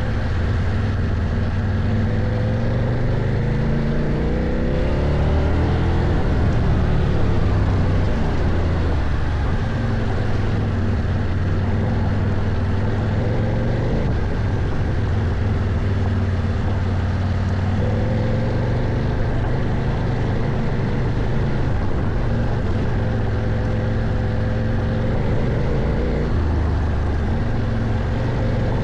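CFMOTO Ibex 800 adventure motorcycle's parallel-twin engine pulling under throttle on a trail ride, the revs climbing a few seconds in and then rising and falling with the throttle, under wind rush.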